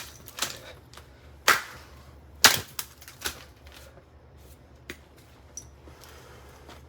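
Revlon RVDA5036 hair dryer giving a series of irregular sharp cracks and pops, the loudest in the first three seconds and fainter ones after, over a faint low hum.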